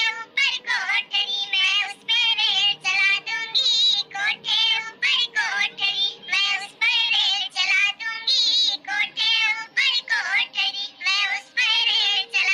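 A high-pitched cartoon voice sings a dadra gaari geet, a folk wedding song, in short phrases with a wavering, ornamented melody and brief breaks between them.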